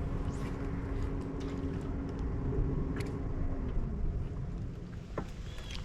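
Small electric trolling motor humming at a steady pitch, winding down and stopping about two-thirds of the way through, over a constant low rumble.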